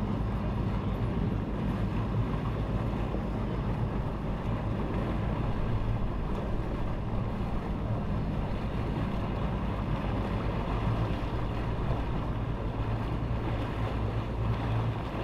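An engine idling steadily, a constant low hum, with wind noise on the microphone.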